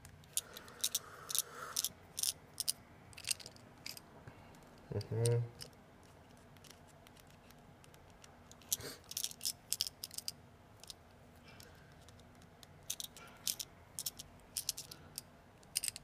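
Small, sharp clicks and taps at irregular intervals from a screwdriver and the small metal screws and plate of an iPhone 6 being taken apart.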